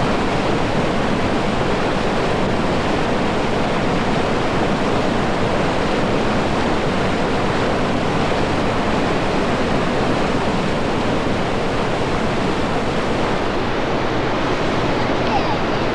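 River rapids rushing, a steady, even wash of whitewater.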